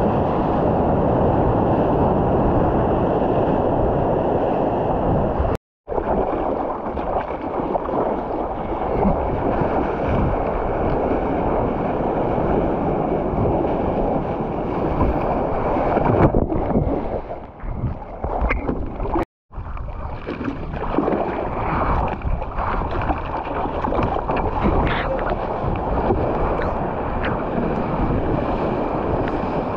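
Wind buffeting an action camera's microphone over water sloshing and splashing around a surfboard at sea level. The noise is steady and dense, and twice cuts out to silence for a moment.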